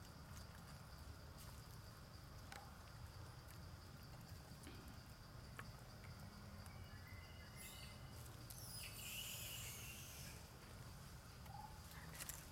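Near silence: faint outdoor background with a steady low rumble and a few soft ticks, and a brief rustle about eight to ten seconds in.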